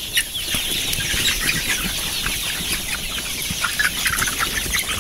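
A flock of young cockerels in their pen, giving many short, overlapping chirps and clucks. The flock has a respiratory infection, and some birds still snick and rattle as they breathe.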